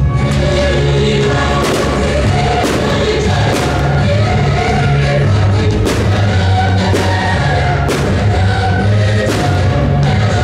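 Choral music with a steady bass line, played loud as a fireworks show's soundtrack, with sharp hits every second or two.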